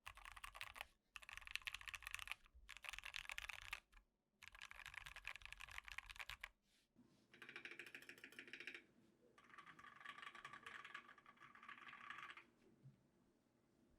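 Fast typing on a custom Tofu60 60% mechanical keyboard with Durock T1 tactile switches and XDA keycaps, in several runs of rapid keystrokes with short pauses between them. After about seven seconds the typing sounds brighter, with a faint low hum underneath.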